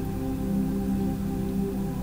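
Calm ambient background music of sustained, overlapping tones with no beat.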